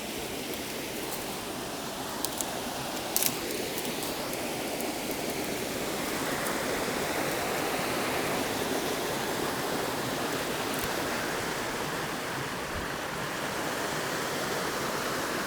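Steady rushing of a waterfall, growing louder about six seconds in, with a few short clicks in the first few seconds.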